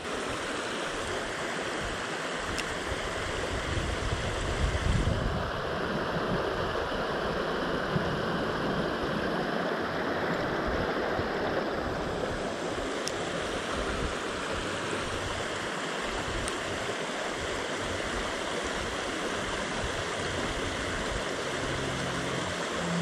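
Creek water rushing steadily over rocks in a shallow riffle, with a brief low rumble about five seconds in.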